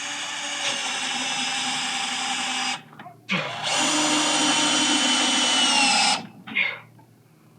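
Power drill running in two bursts: the first stops about three seconds in, and a second, louder run starts a moment later and dips slightly in pitch just before it stops.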